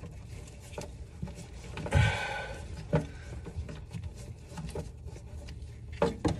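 Scattered small clicks, knocks and rubbing of hands and tools working on hardware under a kitchen sink, with a louder sound about two seconds in and sharper knocks about three and six seconds in.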